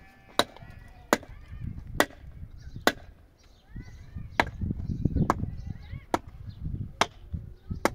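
Sharp, regular chopping strikes, nine in all, about one a second with a short pause around the middle. Bird chirps and a low rumble sound between the blows.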